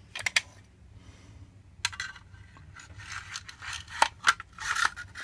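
Kel-Tec RFB's polymer stock being fitted back over the steel barreled action: hard plastic and metal scraping and rubbing together, with a couple of sharp clicks at the start and a few more about four seconds in.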